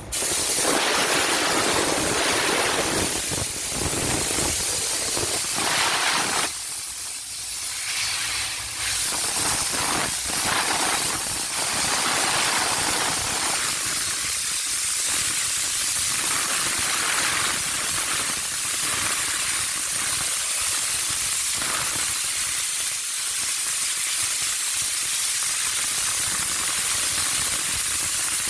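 Steam car-wash wand blasting a jet of steam onto a car: a loud, steady hiss that starts abruptly and eases for a couple of seconds about six seconds in.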